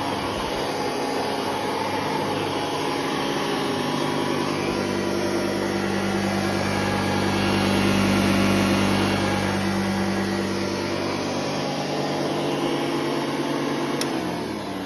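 Hoover Model 61 upright vacuum cleaner running steadily. A click about fourteen seconds in, and its motor starts to wind down, its pitch falling.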